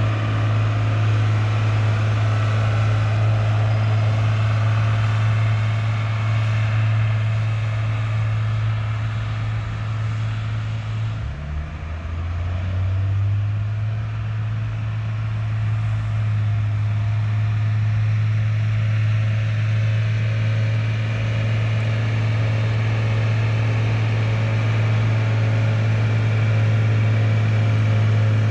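Fendt Favorit 511 C's six-cylinder diesel engine running at a steady pitch as the tractor pulls a log-laden forestry trailer. About eleven seconds in its pitch drops briefly, then settles back.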